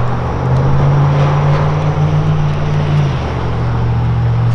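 Car engine running with steady road noise, its low hum rising in pitch about half a second in and easing back down about three seconds in.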